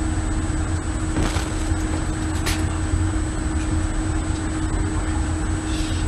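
Steady low rumble with a constant hum, the background noise of a warship's deck, with two brief sharp noises about one and two and a half seconds in. No blast or motor roar stands out when the missile fails.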